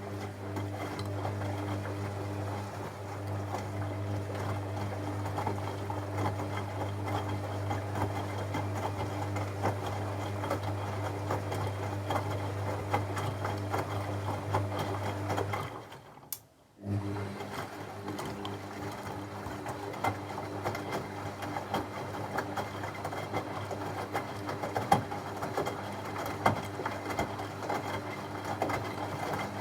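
Techwood WB 91042I washing machine motor turning the drum with a steady hum, which stops for about a second midway and then starts again, as the drum reverses direction during the wash.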